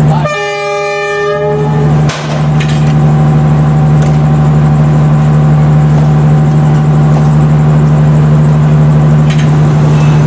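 Diesel locomotive of the Reunification Express sounding its horn once near the start, a single pitched blast lasting about a second. It is followed by the engine's loud, steady low drone.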